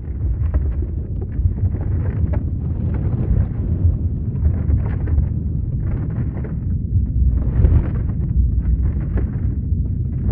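Earthquake rumble: a deep, continuous rumble with surges of rattling and crackling that come and go every second or so.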